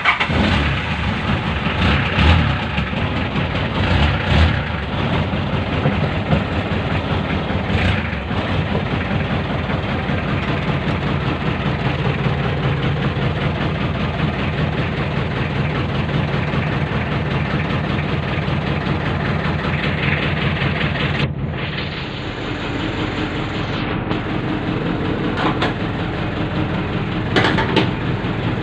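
Car engine running at idle just after starting, with a few louder peaks in the first seconds and a change in its sound about 22 seconds in.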